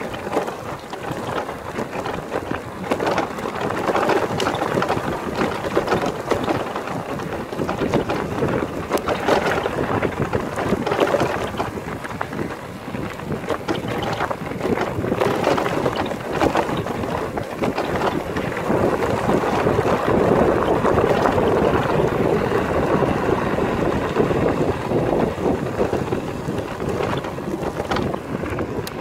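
Wind buffeting the microphone while mountain-bike tyres crunch over a gravel track, with frequent small knocks and rattles as the bike rolls over stones.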